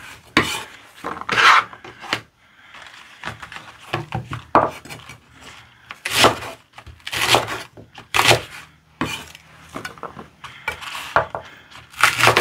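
Chef's knife slicing through stalks of Korean large green onion and knocking on a wooden cutting board. One crisp cut at a time, roughly one a second at uneven spacing.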